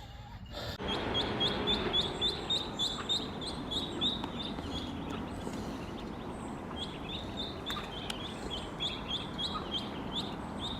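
Baby poultry peeping: short, high peeps repeated about three to four times a second, pausing briefly around the middle, over a steady background hiss.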